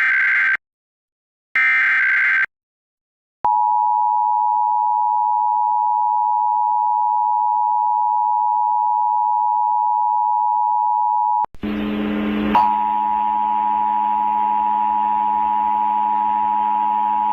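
Emergency Alert System test: the last two of the warbling SAME data bursts of the header, then the EAS two-tone attention signal held steady for about eight seconds. It breaks off abruptly, and a rougher, buzzier steady tone at a similar pitch takes over with a low hum beneath it.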